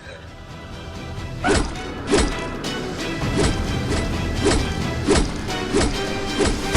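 Dramatic thriller background music: a sustained drone swells, then heavy percussive hits land in an even beat, about three every two seconds, from about a second and a half in.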